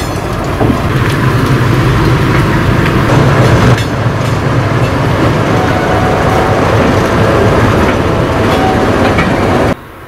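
Train of sleeper coaches with a diesel locomotive: a steady low rumble of engine and rail with a few clanks. It cuts off suddenly near the end.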